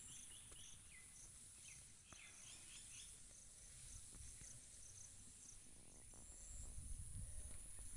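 Faint, steady, high-pitched chirring of insects in a pulsing rhythm, with a few short bird chirps in the first three seconds and a low rumble near the end.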